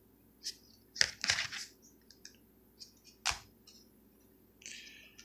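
Hard plastic top-loader card holders clicking and tapping against each other as they are handled and picked from a stack, with a few sharp clacks, the loudest about a second in and again past three seconds, and a short sliding scrape near the end.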